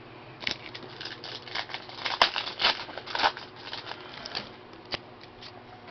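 Trading cards being handled and flipped through by hand: an irregular run of soft rustles and crinkles, with a sharp click about two seconds in.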